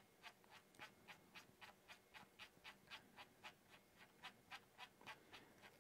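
Faint, even clicks, about four a second: a control knob on a Roland VR-1HD video mixer being turned step by step to raise the camera zoom.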